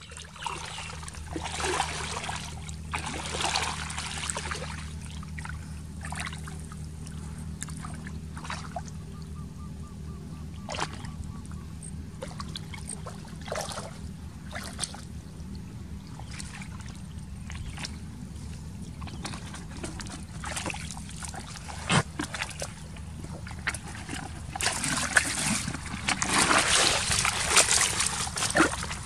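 Footsteps squelching through mud and wet grass with scattered rustles and clicks over a low steady hum. Near the end, muddy water splashes and trickles as a plastic basket is scooped through a shallow puddle.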